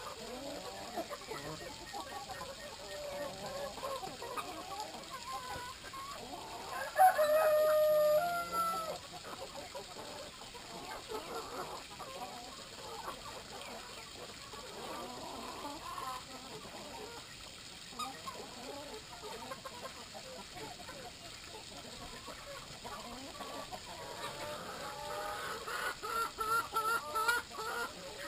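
Brahma chickens clucking steadily. A rooster crows once about seven seconds in, the loudest sound, with a long held note that falls at the end. Near the end comes a quick run of repeated calls.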